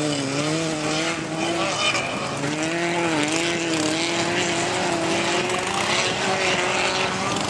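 Autocross cars racing on a dirt track, engines revving hard, their note rising and dipping again and again with the throttle, over a steady rushing noise.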